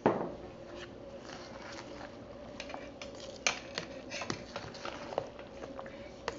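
A slotted metal spoon stirring moist soy ceviche in a plastic bowl: soft squishing and scraping with irregular clicks and knocks of the spoon against the bowl. A single thump right at the start is the loudest sound.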